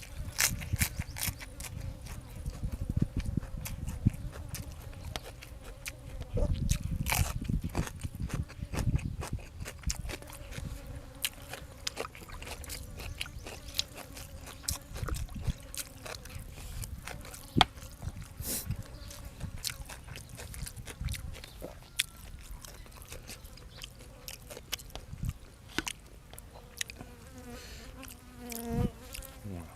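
Close-up eating: chewing and slurping, with many small sharp clicks and crackles like spoon on bowl and crunching of fresh vegetables, over a faint steady hum.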